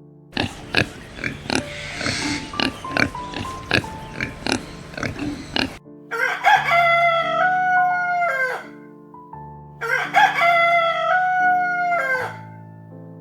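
Rooster crowing twice, each crow a long pitched call that drops at the end, after about five seconds of rapid, noisy animal clicking and clucking. Soft piano music plays underneath.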